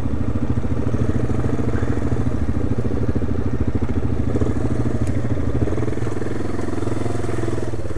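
Single-cylinder four-stroke engine of a 1997 Yamaha Big Bear 350 ATV running steadily at low revs in first gear.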